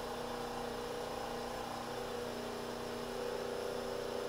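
Small lab synchronous generator and its coupled drive machine running at about 1800 rpm with no load: a steady whir and hum made of a few level tones, shifting slightly partway through.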